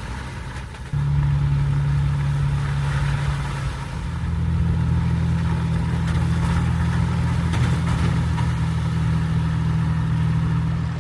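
A 4x4 SUV's engine running at a steady speed, with a low, even hum that jumps louder about a second in.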